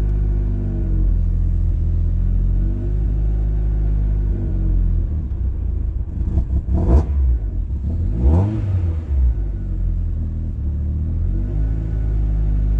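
Honda Prelude DOHC VTEC four-cylinder engine running at a fast cold-start idle, freshly started while its cold-start fuel settings are being tuned. About halfway through the idle sags and stumbles, with a sharp knock and a brief drop and rise in pitch, then it settles back to the fast idle.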